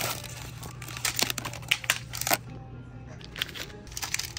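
Crinkling and rustling of packaged snack-waffle wrappers being handled and pulled from a shelf box, in quick bursts, over a steady low hum.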